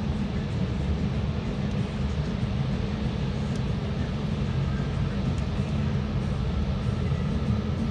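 Long Island Rail Road M3 electric multiple-unit train of 12 cars passing, a steady low rumble of wheels on rail.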